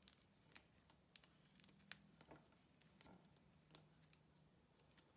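Faint, scattered crisp snaps and rustles of fresh rosemary leaves being stripped off the stem by hand, over a faint low steady hum.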